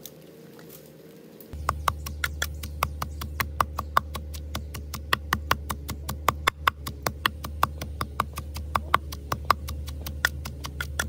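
Close-miked eating sounds of grilled fish being chewed: wet smacking and crunching clicks, several a second and uneven, starting about a second and a half in over a low steady hum.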